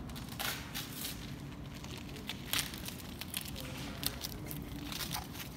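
A child tearing and crinkling gift-wrapping paper: irregular short rips and rustles, the loudest about two and a half seconds in.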